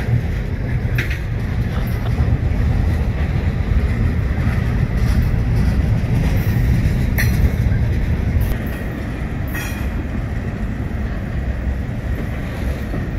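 Loaded freight hopper cars full of trap rock rolling past on the rails: a steady heavy rumble of wheels on track, with a few sharp clacks as wheels cross rail joints.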